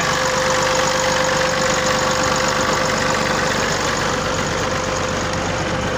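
A 240 tractor's diesel engine running steadily at low throttle, driving a tubewell pump through its shaft under light load. A constant drone with a steady hum held over it.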